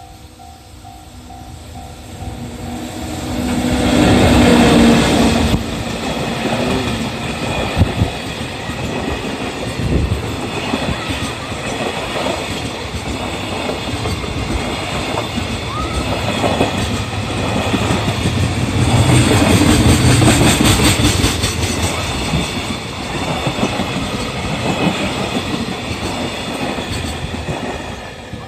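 Freight train hauled by an EF64 electric locomotive passing at speed. A level-crossing bell is ringing at the start. The loudest pass comes about four to five seconds in, then a long string of freight wagons rattles by with the wheels clacking over the rail joints.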